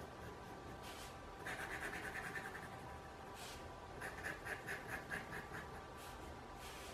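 Fine fountain-pen nib of a Waterman Flash scratching across paper. It makes two fast runs of short back-and-forth hatching strokes, several a second, with a few single longer strokes between them.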